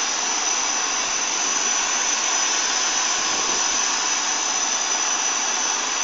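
Steady hiss of steam escaping from a standing steam locomotive, even and unbroken, with a thin high whistle-like tone running through it.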